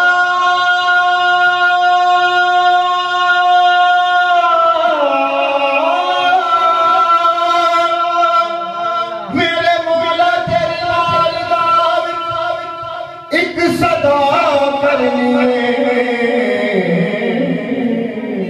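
A man singing a naat unaccompanied, in long held and ornamented notes that bend downward, with a fresh loud phrase starting about two-thirds of the way through and the melody falling toward the end.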